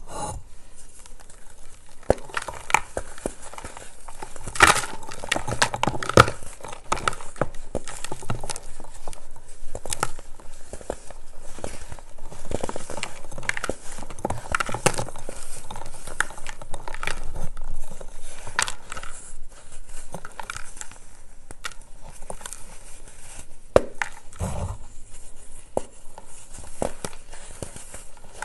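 Pressed baking soda blocks being squeezed and crumbled by hand, crumbs and powder falling into a plastic basin: a dense run of irregular soft crunches and crackles. A few sharper cracks come about five and six seconds in and again near the end.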